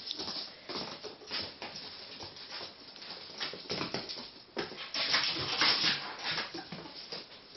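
Ferrets scampering and scrabbling about on a wooden floor and against a cardboard box: irregular scratching, rustling and small knocks, loudest about five seconds in.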